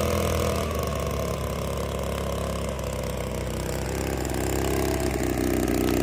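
An engine running steadily at low speed, its pitch sagging a little and then rising again near the end.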